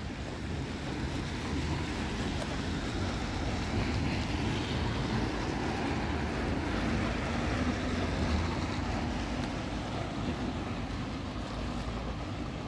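Steady outdoor street ambience: a low rumble of motor traffic with wind on the microphone, swelling a little in the middle.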